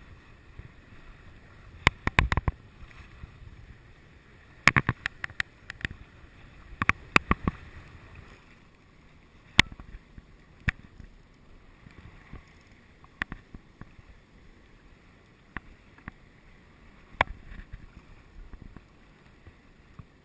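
Wind and water noise aboard a sailboat under way, a low steady rush broken by irregular sharp knocks and slaps that come in clusters about two, five and seven seconds in, then singly every few seconds.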